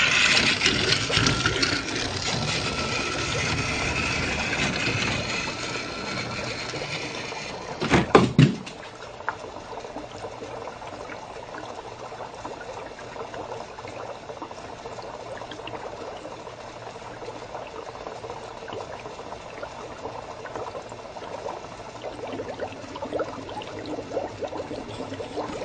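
Battery toy train's small motor and gears running with a steady whir and fine ticking, louder over the first several seconds. A sharp knock comes about eight seconds in.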